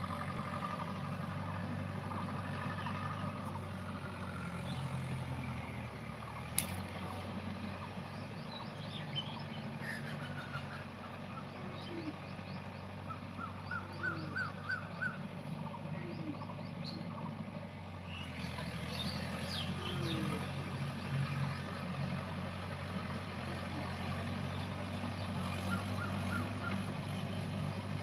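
Distant Mahindra tractor engine running steadily as it works a field with a cultivator, a low constant hum. Small birds chirp over it now and then, with a quick run of chirps about halfway through, and there is a single sharp click about six and a half seconds in.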